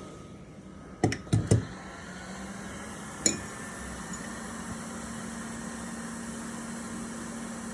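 Small tools clicking and tapping on a phone repair bench: three or four sharp clicks about a second in and one more near three seconds, over a steady low hum.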